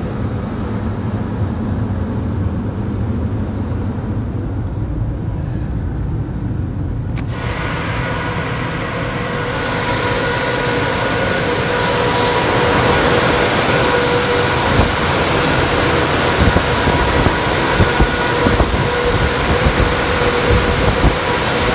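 Tunnel car wash dryer blowers running: a steady rush of air, dull and low at first, then about seven seconds in it suddenly turns much brighter and louder, with steady fan whine tones over the rushing noise.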